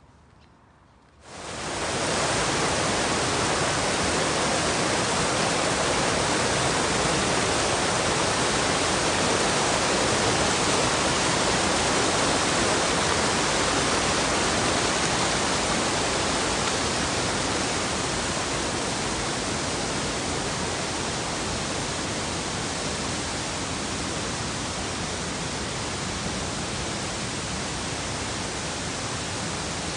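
A stream rushing over rocks: a steady, even rush of running water that fades in about a second in and eases slightly past the halfway point.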